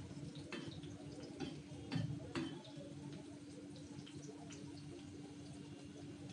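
Fish curry simmering in a pan: scattered small bubbling pops and ticks, with a few louder knocks, over a steady low hum.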